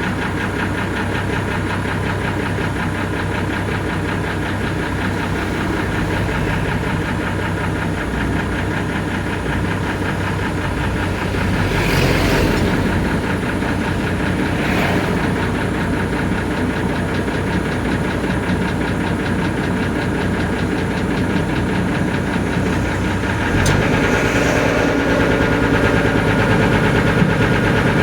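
Engine running steadily, with a couple of brief louder noisy moments midway; about 23 seconds in its note changes and it gets louder.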